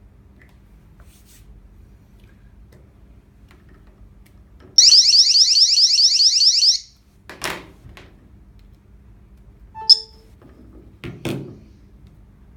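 Anti-theft alarm of a mobile phone security display stand sounding a loud, fast warble of rising chirps for about two seconds, then cutting off. A few knocks follow, with one short beep between them.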